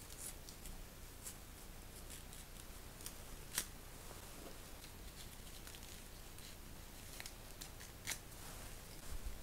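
Faint rustling and small clicks of a small clear plastic bag being handled and opened by hand, with a sharper click about three and a half seconds in and another about eight seconds in.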